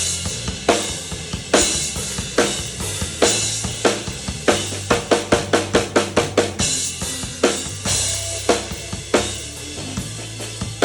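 Drum kit played at a band sound check: a steady beat of kick, snare and cymbal, with a quick run of hits about halfway through, over sustained low bass notes.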